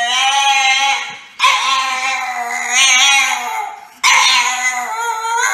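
French bulldog howling and whining in three long, wavering calls, a vocal protest at being refused more food.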